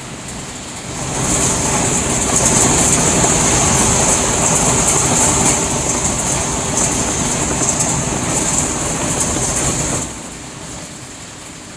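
Machinery of a scrap-refrigerator recycling and sorting line running: a loud, steady mechanical din with a strong high hiss and low hums. It rises sharply about a second in and falls back near the end.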